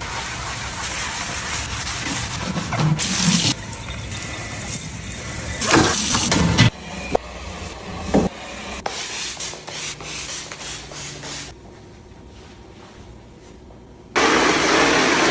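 Vacuum cleaner running with a steady hiss, its sound changing abruptly several times, with a louder stretch near the end.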